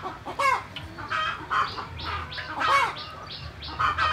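Chickens clucking: a run of short calls, with two louder drawn-out calls that rise and fall, about half a second in and again near three seconds.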